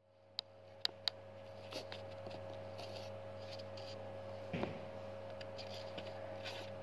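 Steady low mechanical or electrical hum in a small room, with three sharp clicks in the first second and a soft knock about halfway through.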